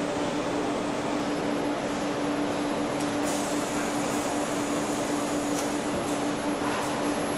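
Steady factory-floor machinery noise from automated engine machining lines, with a constant hum and a few faint ticks.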